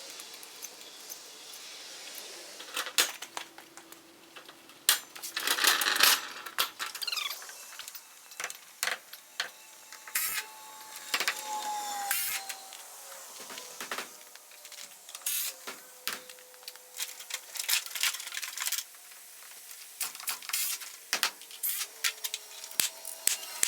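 Irregular clicks, knocks and metallic clinks of tools and hardware being handled during carpentry work.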